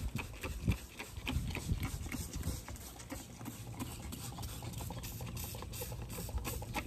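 Plastic trigger spray bottle squirted over and over in quick succession: a string of short spritzes, several a second, with the clicks of the trigger.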